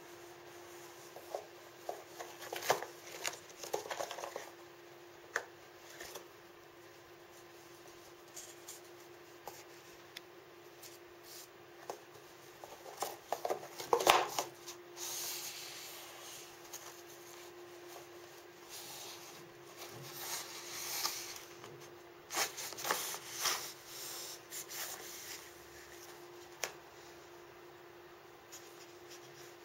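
A cat rummaging with paws and nose in small paper boxes for hidden treats: irregular bursts of rustling and scraping, the loudest about 14 seconds in and another cluster a few seconds later.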